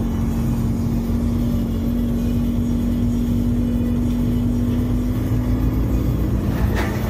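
Steady engine and road drone heard inside a large truck's cab while driving, with a constant low hum under it. A brief hiss sounds near the end.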